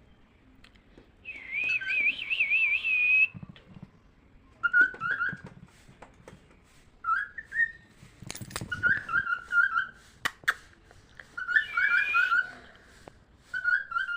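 Albino cockatiel whistling: first a wavering whistled phrase, then repeated short chirped notes in bursts every couple of seconds. A few sharp taps and a low thump around the middle.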